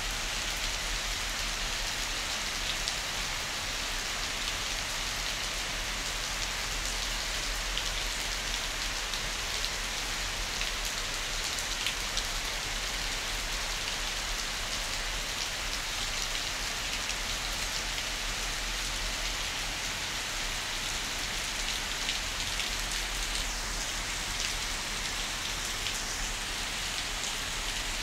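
Heavy rain falling steadily on trees, palms and lawn: a dense, even hiss flecked with countless small drop ticks.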